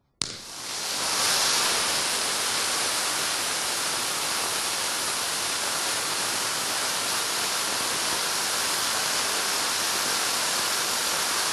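Le Maitre long-duration silver mini gerb cartridge (1231L) igniting with a sharp crack, then a steady loud hiss as it sprays its fountain of sparks, building to full strength within about a second.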